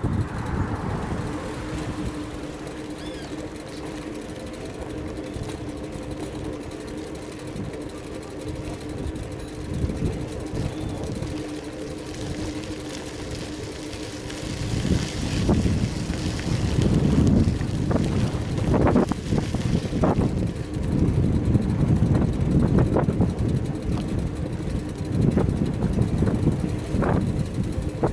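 Wind buffeting the microphone of a camera on a moving bicycle, mixed with road rumble, over a low steady hum in the first half. From about halfway the buffeting grows louder and gustier, with irregular knocks.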